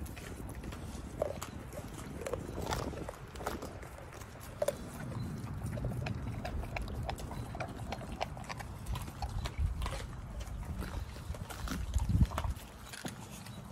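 A pit bull chewing and gnawing on a whole raw chicken: irregular wet chewing clicks and crunches over a low rumble, with a louder thump about twelve seconds in.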